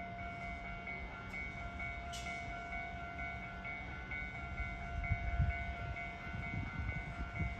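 Train approaching on the line: a low rumble of wheels on rail that grows louder, with heavy knocks from about five seconds in. Under it a warning tone pulses steadily, about twice a second.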